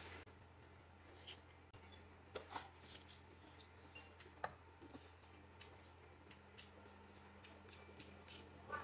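Near silence: a low steady hum with faint, scattered clicks and taps of chopsticks against bowls and the hotpot.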